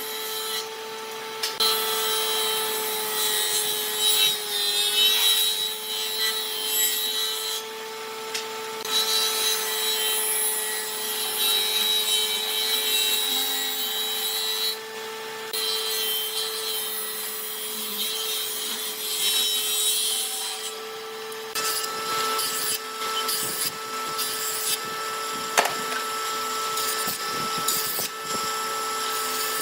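Electric power tool running steadily while working wood, its motor note dipping slightly under load, with a rasping cutting noise that stops and starts several times. In the last third a second, higher tone joins, with scattered light knocks.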